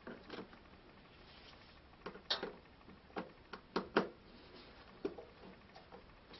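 Faint, scattered clicks and taps of a painted plastic motorcycle body panel and its fastening bolt being handled and fitted by gloved hands, with the sharpest knocks between about two and four seconds in.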